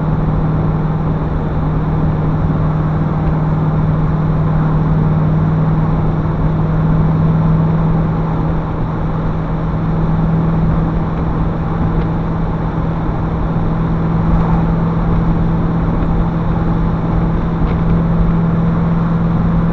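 TVR V8S's Rover V8 engine running at a steady cruise, a constant drone over tyre and road noise, heard from inside the car.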